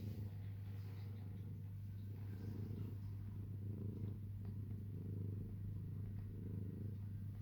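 Sphynx cat purring steadily, a low continuous flutter.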